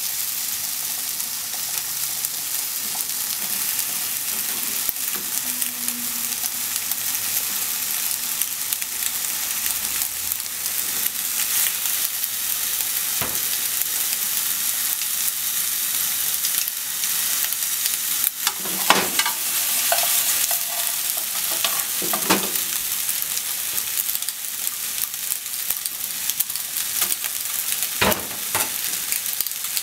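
Boiled macaroni and sliced onions sizzling steadily in a hot frying pan as they are stir-fried with chopsticks. A few sharp knocks against the pan ring out, about halfway through and again near the end.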